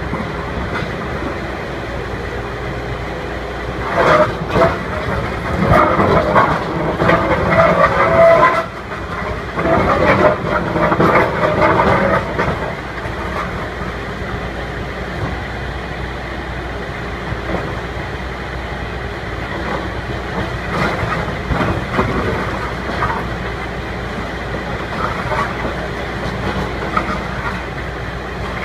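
Rotary pile driving rig running: a steady engine drone, with a louder stretch of clattering and grinding metal noise from about 4 to 12 seconds in.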